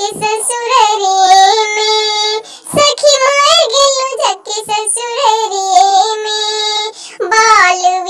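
A high, pitch-shifted cartoon-cat voice singing a sorrowful folk song in long held, wavering phrases. It breaks briefly about two and a half seconds in and again near the end.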